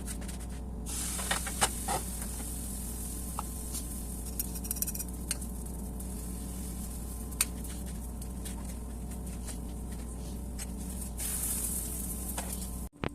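Pancakes sizzling in a hot frying pan, with a stronger hiss about a second in and again near the end, and a few light clicks of kitchen utensils.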